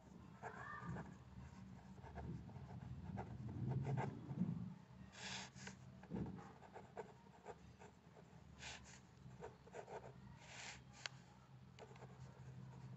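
Ballpoint pen writing on notebook paper: faint scratching strokes of handwriting, a few louder rasps among them, over a low steady hum.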